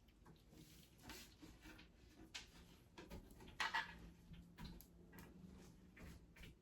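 Faint clicks and knocks of dresser parts being handled and fitted together during assembly, with one louder knock a little over halfway through.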